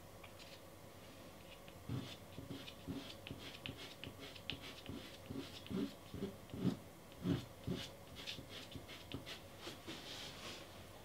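Short, irregular scratchy strokes of a soft pastel stick dabbing small flower petals onto sanded pastel mat, with soft low knocks as the stick meets the board, busiest in the middle of the stretch.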